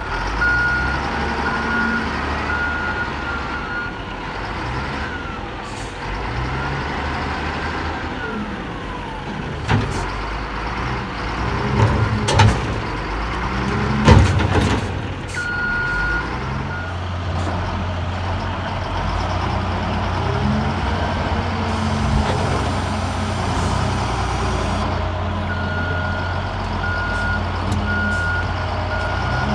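Diesel engine of heavy quarry machinery running steadily, with a reversing alarm beeping in short runs near the start, around the middle and near the end. A few sharp knocks come about a third to halfway through.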